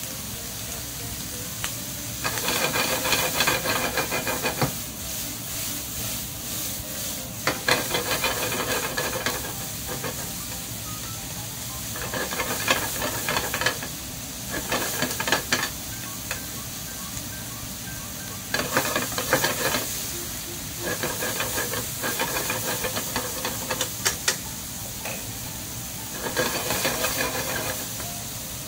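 Bacon and sliced mushrooms sizzling in a non-stick frying pan, with a steady hiss. About seven bursts of stirring with wooden chopsticks, each a second or three long, stand out over it.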